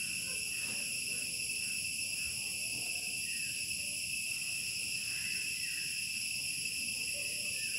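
Steady high-pitched drone of insects: several level tones that run on without a break or pulse.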